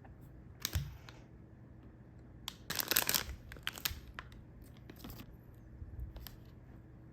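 Snack packaging being handled and opened: crinkling and tearing of a wrapper in short bursts, loudest a little before the middle.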